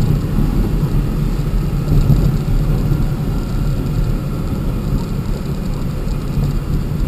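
A vehicle driving over a rough dirt and gravel road: a steady, loud low rumble of engine and tyres.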